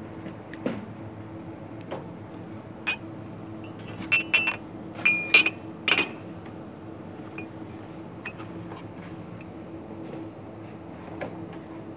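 Ceramic mugs clinking against each other and the shelf as they are picked up and moved, a quick run of sharp ringing clinks in the middle, over a steady low hum.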